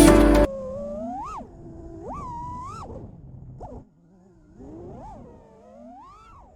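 FPV freestyle quadcopter's brushless motors whining, the pitch swinging up and down as the throttle is punched and eased several times. Background music cuts off about half a second in.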